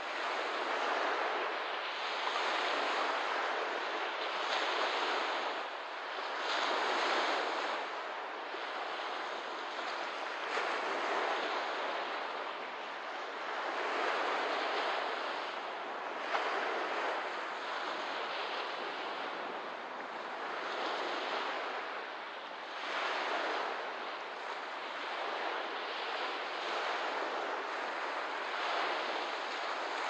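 Lake waves washing onto the shore, each wash swelling and fading every two to three seconds over a steady hiss.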